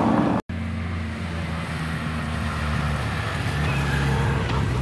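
Team support car driving slowly behind a time-trial cyclist, its engine and tyres making a steady low hum. The sound cuts out abruptly about half a second in, then resumes.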